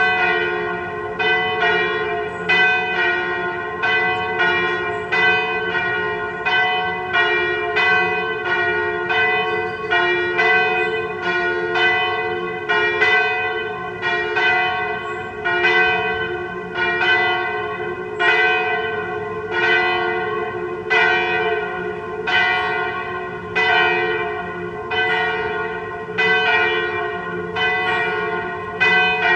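Two swinging church bells pealing together, tuned a semitone apart to F and G-flat: a 983 kg bell cast in 1950 by Marcel Michiels of Tournai and a 771 kg bell cast in 1836 by Andreas-Lodewijk van Aerschodt of Leuven. The strokes come about twice a second, each one ringing on under the next.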